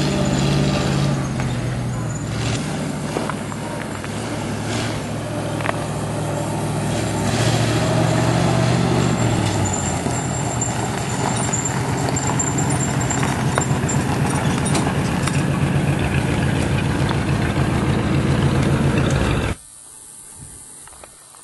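Engine of a 1941 Ford fire truck running under way, its pitch dropping about two seconds in and again near the middle as the revs fall. The engine sound cuts off abruptly near the end.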